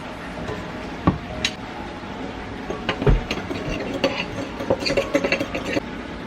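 Kitchen utensils and dishes knocking and clinking while pancake batter is made: a few separate sharp knocks, then a quick run of clinks near the end.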